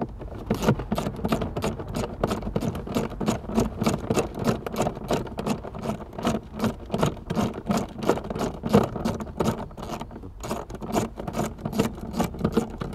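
Socket ratchet clicking as 10 mm bolts are undone: a steady run of sharp clicks, about five a second, with a short pause about ten seconds in.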